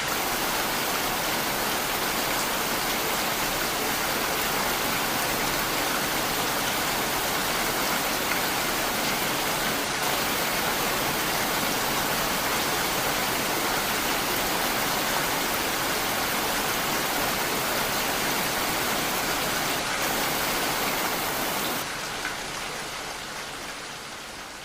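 Heavy rain falling in a steady, dense hiss, then fading out near the end.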